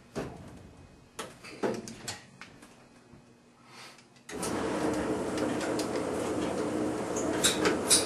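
A few clicks and knocks, then about four seconds in a Bryant Plus 90i gas furnace's motor starts up suddenly and runs on with a steady whir, with sharp ticks over it near the end.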